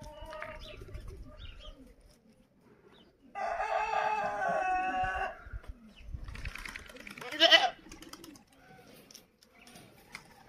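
A rooster crowing once, a long call of about two seconds, starting about three and a half seconds in. A shorter, rising call follows a few seconds later.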